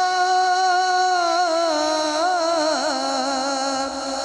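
A man's voice singing a devotional Urdu salam (naat) into a microphone, drawing out one long note. The note holds steady, then wavers in ornamented turns and slides down to a lower pitch late on.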